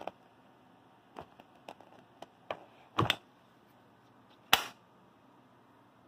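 Handling noise from an AK-pattern pistol with a folding brace: scattered light clicks and knocks, two louder knocks about three seconds in, and a sharp clack about four and a half seconds in, the loudest of them.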